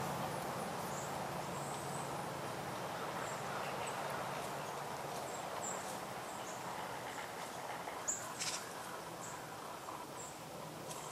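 Faint, very short, high-pitched bird chirps, scattered about once a second or two, over a steady outdoor background rush with a low hum that slowly fades. A brief click about eight seconds in.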